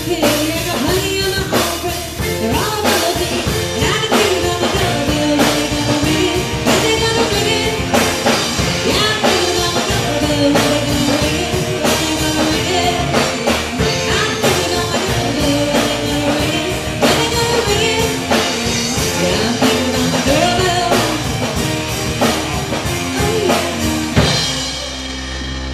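Rock band playing with drum kit, guitar and a singing voice. Near the end the drums drop out and a held chord rings on.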